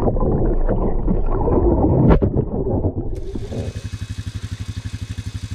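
Single-cylinder engine of a Honda Rancher ATV running while submerged in a pond, breathing through a tall snorkel. It is first heard through water as a muffled, gurgling rumble with a sharp knock about two seconds in. Then, above the surface, it settles into a steady chugging idle of about a dozen pulses a second.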